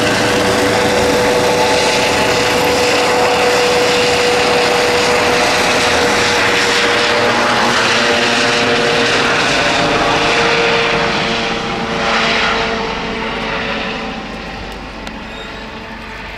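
Airbus H135 P3 helicopter with twin Pratt & Whitney PW206B3 turboshaft engines flying overhead, its turbines and rotors running loud with a steady whine. About two-thirds of the way through, the sound fades as the helicopter flies away.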